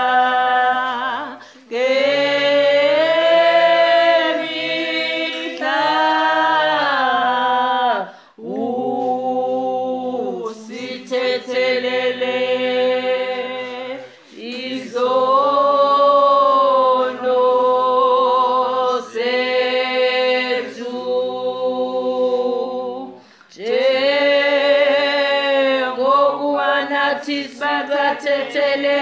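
Church congregation singing unaccompanied, many voices together in long held phrases separated by short breaks for breath.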